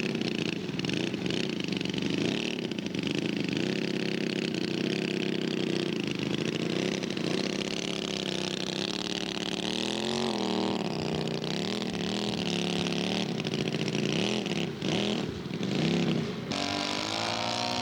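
Engines of radio-controlled scale model airplanes running, their pitch rising and falling as the throttles change, with the swings strongest in the second half.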